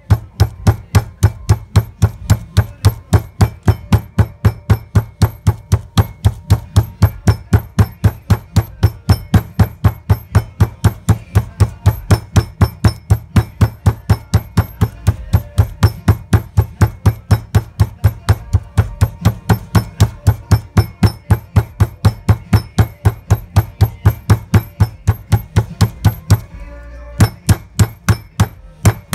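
Metal meat mallet pounding a butterflied chicken breast flat through plastic wrap on a cutting board: a steady run of dull blows, about three a second, with a short break near the end before the blows resume.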